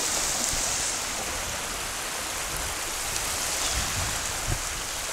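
Small waves washing in and breaking in the shallow surf, a steady hiss of moving water, with a soft low thump about four and a half seconds in.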